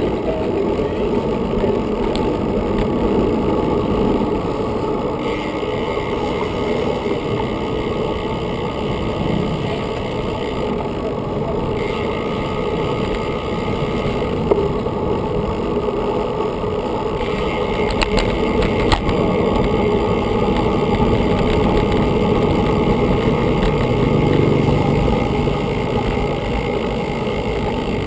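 Road rumble and handlebar vibration of a road bicycle rolling over asphalt, picked up by a GoPro mounted on the handlebar, with some wind on the microphone. The sound is loud and continuous, and a higher hiss comes and goes a few times.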